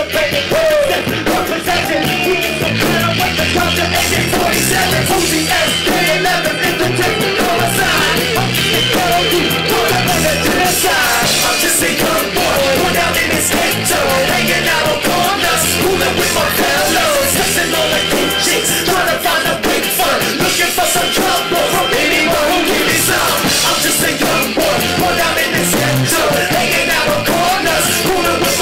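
Loud music with a heavy bass line and vocals over it, running without a break.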